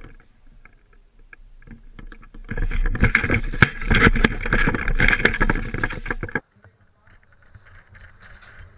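Airsoft guns firing in rapid strings of shots, loudest in the middle and cutting off suddenly about six seconds in, with scattered single clicks before and after.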